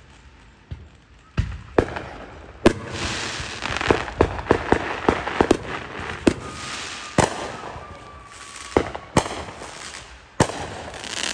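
Aerial fireworks going off: a quick run of sharp bangs starting about a second and a half in, with crackling between the reports, then single spaced booms toward the end. A faint whistle sounds for a couple of seconds midway.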